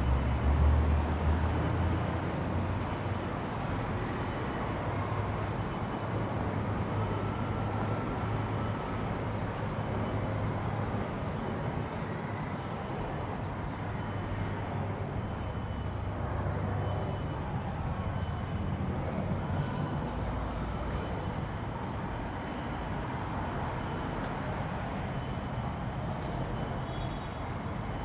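Steady low rumble of distant traffic, loudest in the first couple of seconds. A faint high-pitched tick repeats about once a second.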